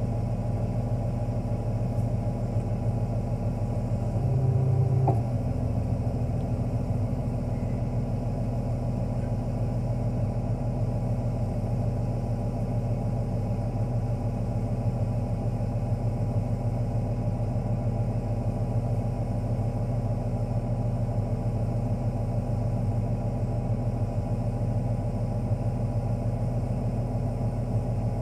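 A wheel loader's diesel engine idling steadily, heard from inside its cab, with a brief swell in the engine sound about four seconds in.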